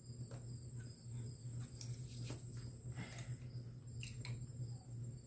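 A few faint clicks and light handling noises as the piston of a small 140cc pit bike engine is slid out of its cylinder and handled, over a steady low hum.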